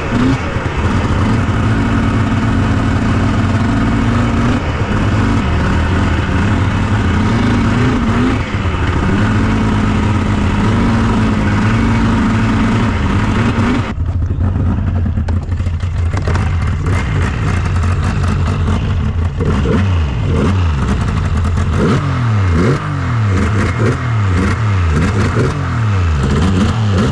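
2001 Yamaha SX700R snowmobile's three-cylinder two-stroke engine running with the choke left on, so it runs rich and poorly. It holds steady for the first half, then over the last several seconds it revs up and down repeatedly.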